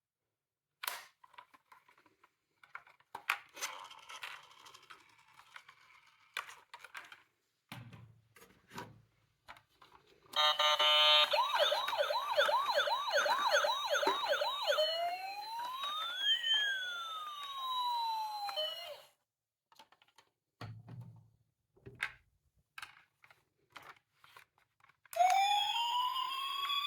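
Electronic sirens of toy miniature ambulances and police cars, coming through their small speakers. About ten seconds in a siren comes on with a fast warble, about three pulses a second, then changes to slower rising and falling wails and cuts off; another siren starts near the end. Scattered clicks and rattles come before and between the sirens.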